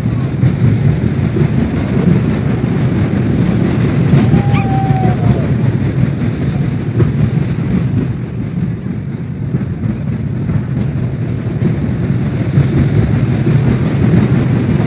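Fairground train ride running on its track: a loud, steady low rumble.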